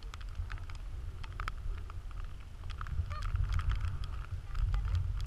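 Wind rumbling on the camera microphone while walking, with scattered light clicks and ticks throughout.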